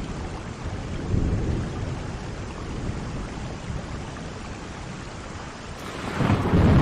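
Steady heavy rain with a low rumble of thunder underneath, the rumble swelling louder near the end.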